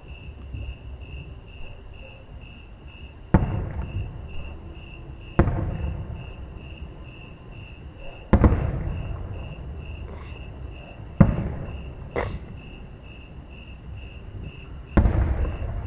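Distant aerial firework shells bursting: five booms a few seconds apart, each trailing off in a rolling echo, with a short crackle between the fourth and fifth. Crickets chirp in a steady high pulse underneath.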